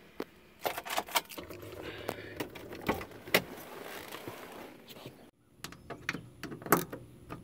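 Handling noise and scattered clicks as someone moves about inside a pickup's cab and climbs out. After a sudden break, sharp clicks from a socket wrench fitted on the door latch striker bolts.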